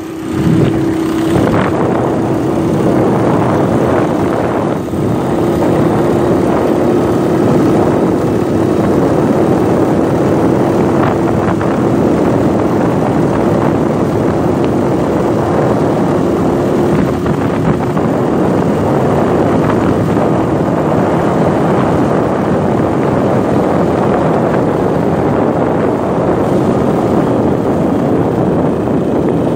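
Small single-cylinder motorcycle engine running at a steady cruising speed while riding along a dirt road, its note holding steady, under a constant rush of road and wind noise.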